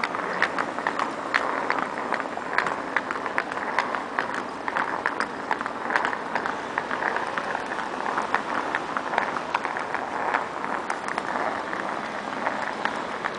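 Outdoor street ambience: many irregular footsteps and clicks of people walking on wet paving, over a steady city hum.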